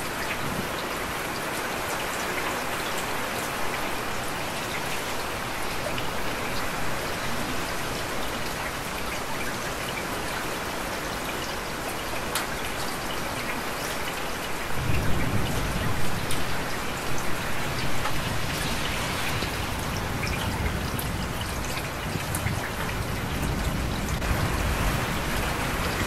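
Heavy rain falling with a steady hiss. A low rumble joins it about halfway through and rises and falls in a few swells.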